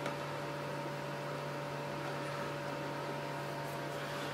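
Steady hum holding a few unchanging tones over a faint hiss: room tone, with no distinct events.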